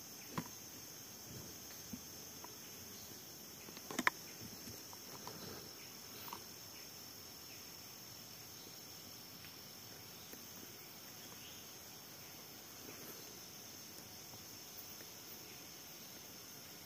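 Steady high-pitched chorus of forest insects, with one sharp click about four seconds in and a few fainter ticks.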